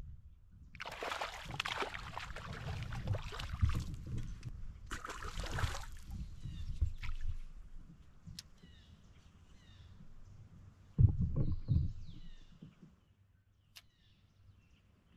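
Water splashing and sloshing around a fishing kayak in two noisy bursts, with small birds chirping faintly in the quieter stretch. A loud low rumble about eleven seconds in is the loudest moment.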